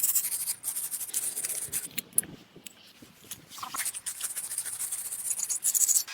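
Repeated scratchy rubbing and scraping strokes, hand work on a part, coming in uneven bursts with a quieter stretch near the middle.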